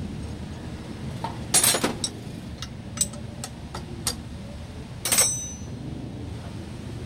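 Sharp metallic clinks and knocks, about eight in all, irregularly spaced, the last one ringing briefly, over a steady low rumble.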